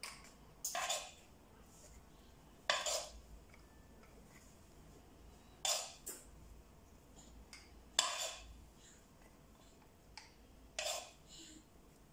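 Metal spoon scraping meat-and-mushroom filling from a frying pan and pushing it into cannelloni tubes. Five short scrapes, about one every two to three seconds.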